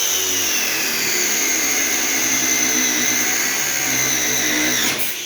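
Bladed power cutting tool running at high speed with a loud, steady high-pitched whine. Near the end there is a sharp crack and the whine cuts off into a falling spin-down, the sign of the blade shattering.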